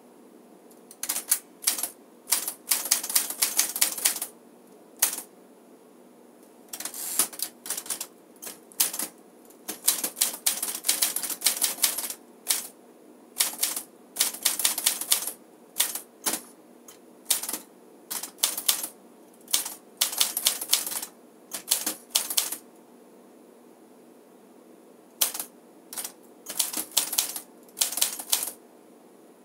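1956 Smith-Corona Silent Super manual portable typewriter being typed on: quick runs of key strikes in bursts, broken by short pauses, with a longer pause of a few seconds about three-quarters of the way through.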